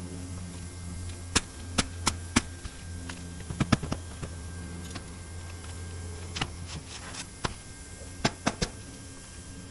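Nails being driven into roof shingles: about a dozen sharp knocks in short irregular groups, over a steady low hum that stops about two-thirds of the way through.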